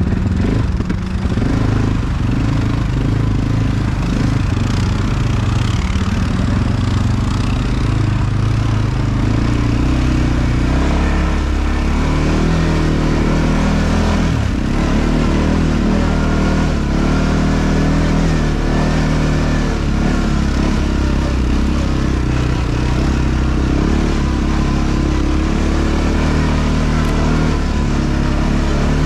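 ATV (quad bike) engine running while riding, its pitch rising and falling with the throttle.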